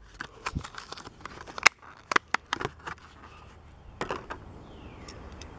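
Clear plastic blister packaging of a Hot Wheels diecast car crinkling and crackling as it is pried open and the car pulled free: a quick run of sharp plastic clicks and snaps, then a couple more about four seconds in.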